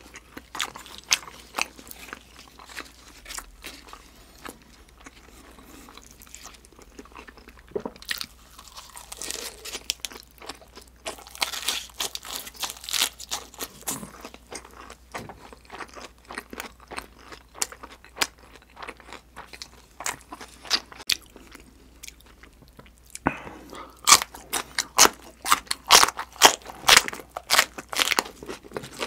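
A person chewing and biting grilled freshwater eel in sweet-spicy sauce, a run of many short clicks and crunches that grows thickest about 11 to 14 seconds in and again over the last five seconds.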